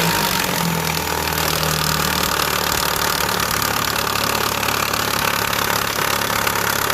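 2015 Chevrolet Aveo four-cylinder engine idling just after start-up, with a clatter that sounds like lifter noise; its idle drops after about two seconds. The cause is a slack timing belt slapping against its cover.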